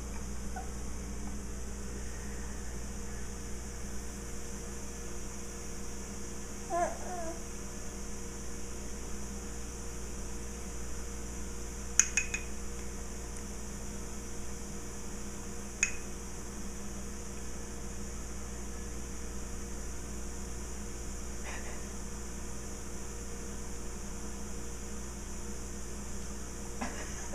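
Steady electrical hum of room tone. A baby makes one short vocal sound about seven seconds in, and a few sharp light clicks come later.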